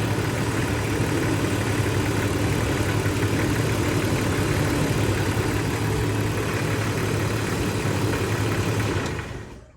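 1994 Jeep Grand Cherokee engine idling steadily with a battery terminal disconnected, then dying about nine seconds in. The stall shows that the alternator is not keeping the engine running: a bad alternator.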